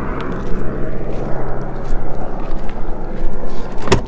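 Car engine idling steadily, with two sharp clicks near the end.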